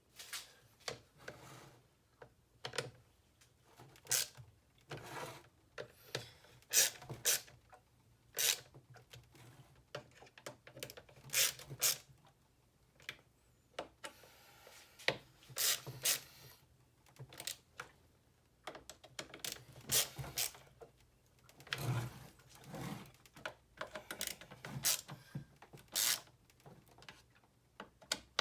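Irregular clicks, taps and light knocks with some rubbing, a few a second, as of hands handling and working small hard parts.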